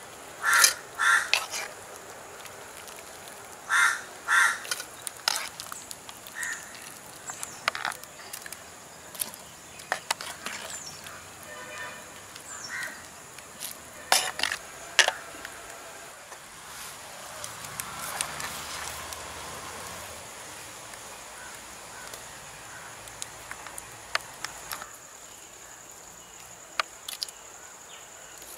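Crows cawing in short pairs of calls, loudest near the start and again about 14 seconds in. Between the calls come scattered knocks and clicks from a wooden ladle scooping boiled hog plums out of a pot into a steel colander.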